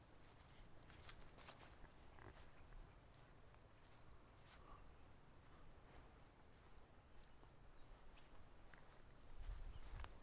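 Near silence: faint rural outdoor ambience with scattered soft high chirps and a few light clicks.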